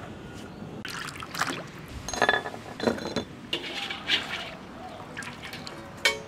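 Water sloshing and pouring with several sharp clinks of a metal ladle and wire strainer against a steel basin and wok, some with a brief metallic ring, as pork intestines are blanched.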